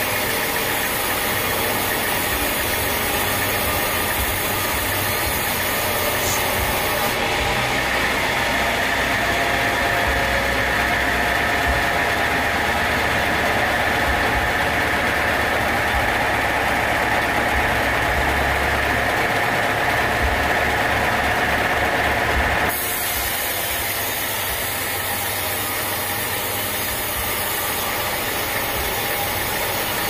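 Band sawmill running, its blade cutting lengthwise through a teak log: a loud, steady mechanical noise of motor and blade in the wood. The sound shifts abruptly about seven seconds in and again near twenty-three seconds.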